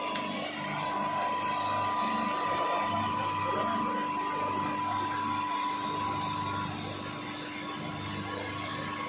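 A steady machine whir with a constant high hum, like an electric motor running.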